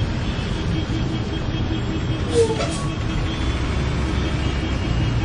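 Steady low rumble of a bus running, heard from inside the bus. A brief, sharper sound comes a little over two seconds in.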